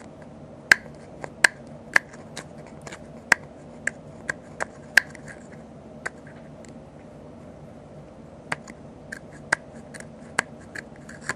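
A cotton swab soaked in acetone being pressed and scrubbed against the metal contacts inside an Xbox 360 controller's plastic battery pack, making irregular sharp clicks and scratches. The clicking stops for about two seconds midway, then starts again.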